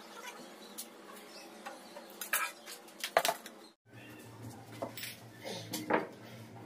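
Scattered metallic clinks and knocks as an aluminium sliding-door bottom track and a wooden block are handled and set in place, with a few sharper taps. The sound drops out briefly after about four seconds, and a steady low hum runs on after that.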